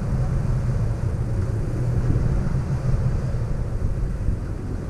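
2021 Toyota Tacoma TRD Off-Road's engine running steadily and low-pitched as the truck crawls slowly up a rutted dirt hill.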